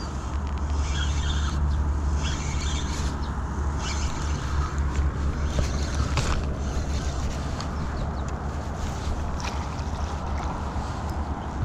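Wind buffeting the microphone: a steady low rumble, with a few short bursts of higher hiss.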